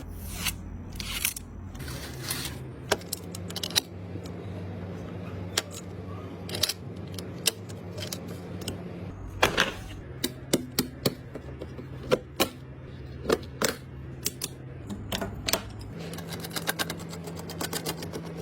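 Irregular clicks and taps of computer parts being handled and fitted together, with a quick run of rapid clicking near the end, over a low steady hum.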